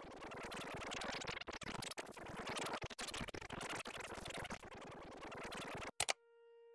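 Video-editing rewind sound effect: a fast, scratchy chattering like sped-up audio played backwards, cutting off abruptly about six seconds in. A sharp click and a brief steady tone follow.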